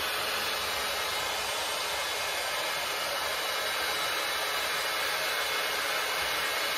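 BaByliss rotating hot air brush running, a steady rush of air from its fan that holds level without any change.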